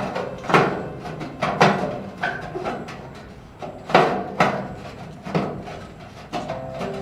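A series of irregular sharp knocks and taps, some ringing briefly, like hard parts or tools being handled and struck.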